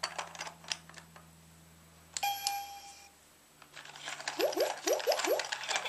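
Interactive toy train station being worked by hand: plastic clicks, then a short electronic chime about two seconds in. Near the end comes a run of rapid clicking and rattling with five quick rising electronic swoops from the toy.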